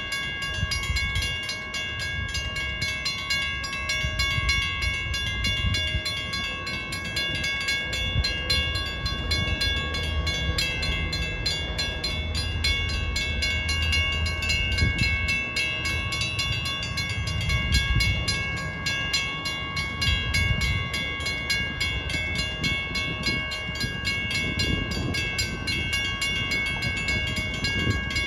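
Electronic railroad grade-crossing bells ringing steadily in very rapid strokes, warning of an approaching train. Under them runs an uneven low rumble.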